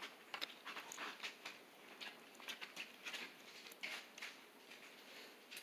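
Faint rustling and light irregular clicks of plastic wrappers and tiny plastic doll accessories being handled on a wooden tabletop.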